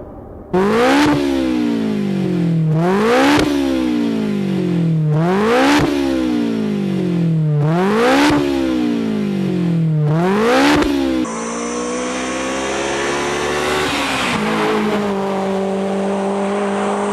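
Honda S2000 inline-four engine with an aftermarket performance exhaust, revved five times in quick succession, each rev climbing fast and falling away more slowly. After a cut, a steadier engine note rises slowly, then settles to a steady running note.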